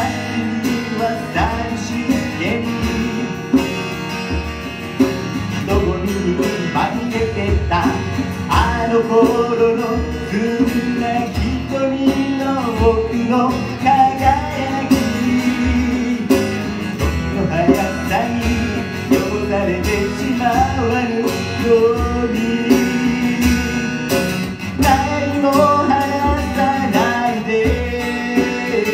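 A man singing to his own strummed acoustic guitar, a steady rhythm of strums under the sung melody.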